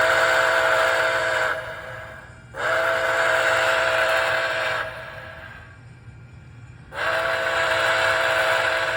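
A model steam locomotive's sound system (MTH Nickel Plate Road 765) blowing a multi-note chime steam whistle with a steam hiss under it. There are three long blasts: the first is already sounding and stops about a second and a half in, the second runs from about two and a half to nearly five seconds, and the third starts near seven seconds.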